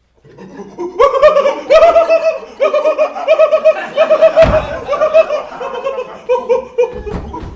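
Audience laughing loudly, breaking out about a second in. One laugh rises above the rest in quick repeated ha-ha pulses, and there is a single thump midway.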